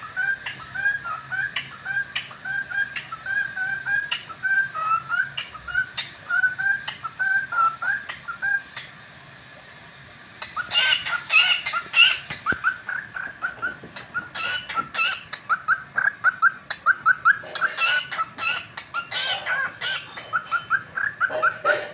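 Cockatiel chirping: a long run of short, repeated chirps, breaking off for about a second and a half halfway through, then coming back louder and quicker.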